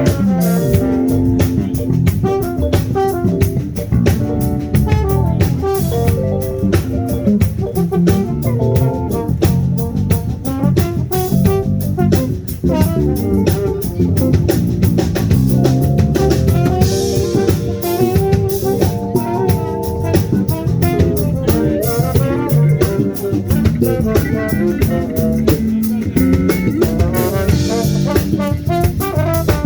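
A live band playing an upbeat number with a drum kit keeping a steady beat under guitar and other melodic instruments.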